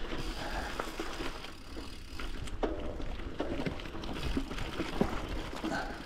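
Footsteps and rustling while walking over rough ground: irregular crunches and knocks.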